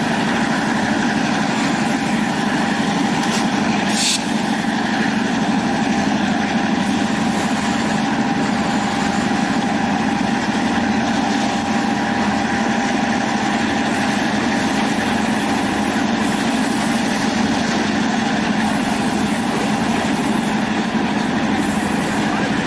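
Diesel locomotive engine running steadily as it pulls the passenger train, heard from a car behind it, together with the rolling noise of the train on the track. A brief, sharper noise comes about four seconds in.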